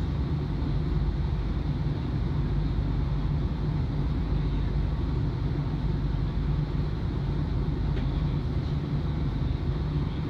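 Steady low hum inside the cab of a Flexity tram standing still, its onboard equipment running with no drive or track noise.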